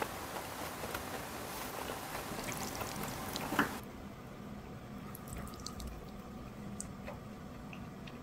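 Wet eating sounds with small clicks of chopsticks on dishes, one sharper click a little over three seconds in. Then, more quietly, the soft wet sound of sauced buckwheat noodles (bibim makguksu) being lifted with chopsticks.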